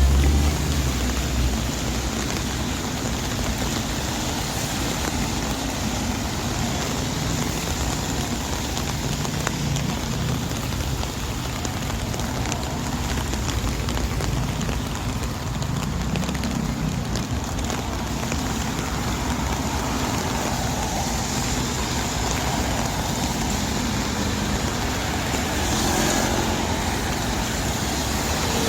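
Rainy city street ambience: steady rain hiss mixed with road traffic running by on wet pavement, with a low rumble of engines beneath. A slightly louder passing sound comes about 26 seconds in.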